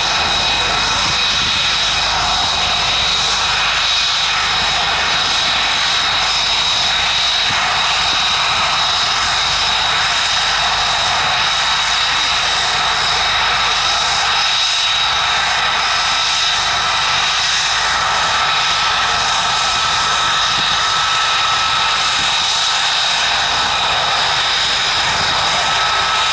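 Lockheed Martin F-35A Lightning II's single Pratt & Whitney F135 turbofan running at taxi power: a loud, steady rush of jet noise with a high whine held on one pitch.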